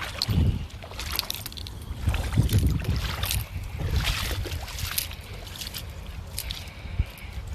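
Gusty wind buffeting the microphone in surges, with scattered crackling noises and a sharp knock about seven seconds in.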